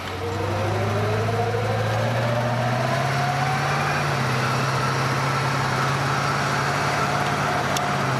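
A 1936 Ford pickup's 350 crate V8 pulling away, its engine note climbing over the first few seconds and then holding steady at cruising speed, with wind and road noise in the cab.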